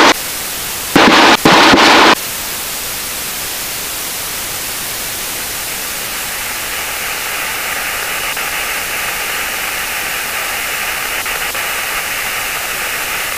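Steady static hiss of the cockpit headset intercom feed. Two short loud bursts come between about one and two seconds in, and the hiss grows slightly brighter about halfway through.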